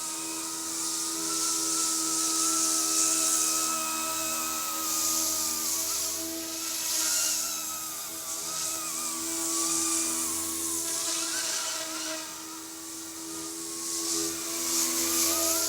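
Eachine E250 AH-64 Apache RC helicopter in flight: the high whine of its electric motors and the buzz of its rotors, the pitch wavering up and down as the throttle changes through turns, over a steady rushing hiss.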